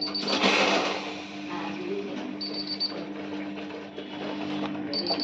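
Kent RO water purifier alarm beeping: a quick run of high beeps about every two and a half seconds, over a steady low hum. It is the warning that goes with a filter due for change. A brief clatter sounds in the first second.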